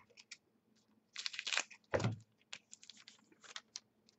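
Football trading cards being flipped through by hand: quick flicks, ticks and rustles of card stock sliding over card, with a low thump about two seconds in, the loudest sound.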